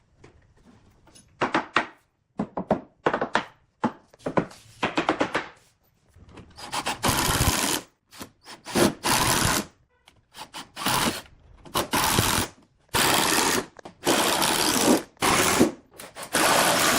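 Woodworking tools on wood: a run of short knocks and taps, then from about six seconds in, repeated bursts of a tool cutting or working the wood, each about a second long with brief gaps between them.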